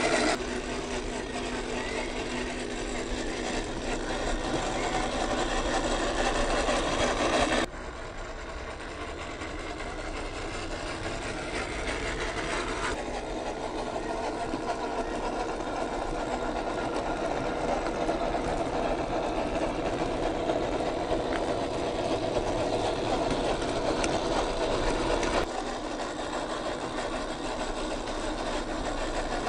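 Electric motor and gearbox of a 1/12-scale MN128 Jeep Rubicon RC crawler whining steadily as it drives over gravel. The sound changes abruptly in level three times.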